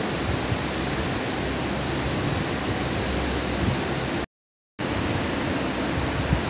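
Steady rushing hiss of room noise picked up by a phone microphone, with low bumps from the phone being handled. It cuts out to silence for about half a second just after four seconds in, then carries on unchanged.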